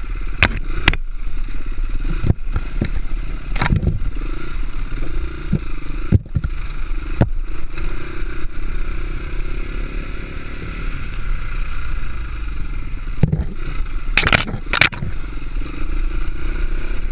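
Dirt bike engine running with its revs rising and falling, heard from a camera mounted on the bike as it rides a rough, rocky trail. Sharp knocks and clatter come as the bike jolts over rocks: several in the first few seconds and a loud pair near the end.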